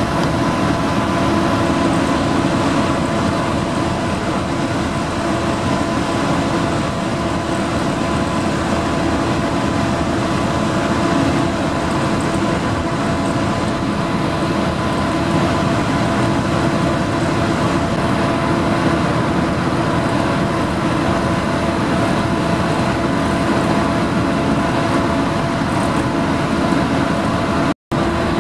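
Steady drone of the Dover Seaways ferry under way as it leaves port: a constant rushing noise with a few steady hum tones, broken by a brief cut-out near the end.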